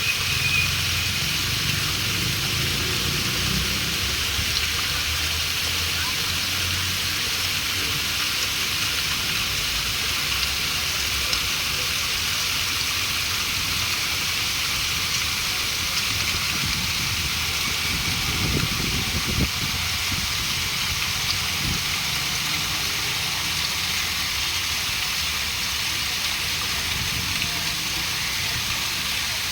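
Steady rush of flowing water, even and unbroken, with a low rumble underneath that fades over the first several seconds.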